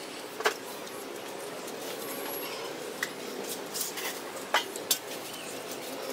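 Eating rice and sambar by hand from a paper-lined steel plate: quiet handling of the food with a few sharp clicks and clinks of metal against the plate.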